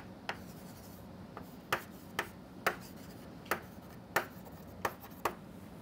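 Chalk on a chalkboard: a string of about eight short, sharp taps and scrapes, irregularly spaced, as chalk strokes are drawn.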